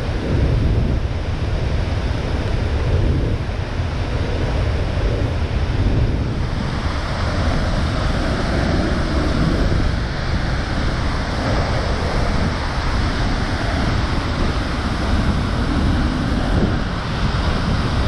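Sgwd yr Eira waterfall in heavy flood, a loud, steady rush of falling water, with wind buffeting the microphone.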